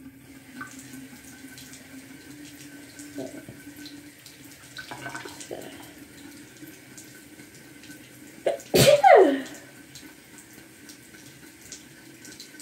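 A person sneezes once, loudly, about nine seconds in, the sneeze's cry falling in pitch. Under it is the steady low hiss of a bathroom sink faucet running.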